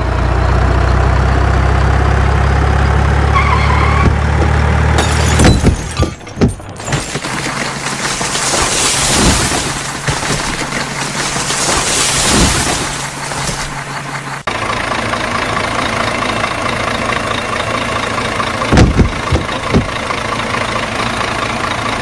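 Truck engine sounds idling and revving, cutting abruptly to a different engine sound at about five and a half seconds and again at about fourteen and a half seconds. A few sharp knocks come around six seconds and again around nineteen seconds.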